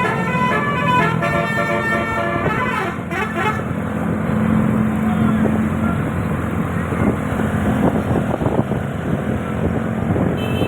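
A bus's telolet multi-horn, an 18-trumpet roof-mounted air-horn set, plays its stepping, melodic tune for about three and a half seconds and then stops. After that a steady vehicle engine hum and street noise remain.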